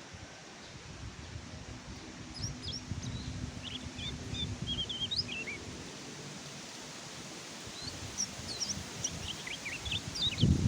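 Kecial kuning (white-eye, burung pleci) singing two bursts of quick, high twittering chirps, the first about two seconds in and the second near the end, over a low rustling background.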